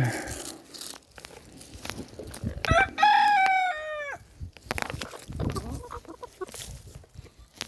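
A rooster crows once, about three seconds in: a call of about a second and a half that drops in pitch at the end. Around it, hens cluck softly amid light crunching and rustling of digging in soil.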